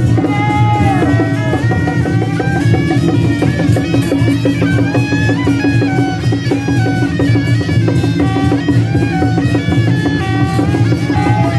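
Traditional Taiwanese temple procession music: a shrill reed-horn melody stepping up and down over a steady drone, driven by fast drum and cymbal beats.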